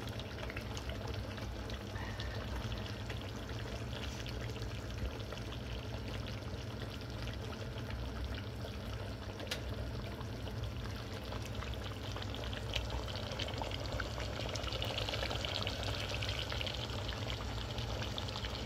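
Chitol fish pieces cooking in hot oil and spiced sauce in a pan: a steady sizzle with scattered crackles, growing a little brighter about three-quarters of the way through.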